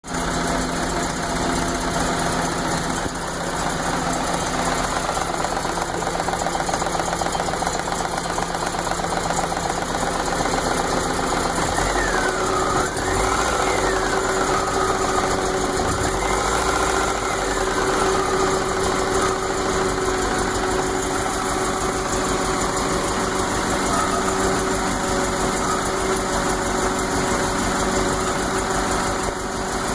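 A 1980 MGB's 1.8-litre B-series four-cylinder engine running at a rough idle. It misses now and then even after its vacuum lines were corrected. Its note shifts about twelve seconds in.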